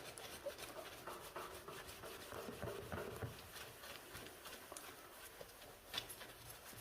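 Damp paper tissue coated in wood ash rubbing on a wood stove's glass door, faint irregular scrubbing strokes wiping off the soot, with one sharper tap about six seconds in.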